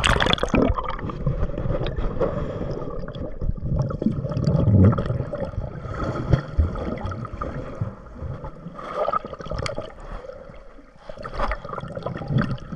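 Muffled water noise heard with the camera under the surface: sloshing and gurgling bubbles, with a splash as it goes under at the start.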